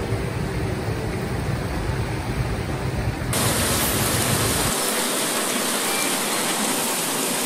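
Steady rushing noise like flowing water, with no distinct events. About three seconds in it turns brighter and hissier, and a second later the low rumble drops out.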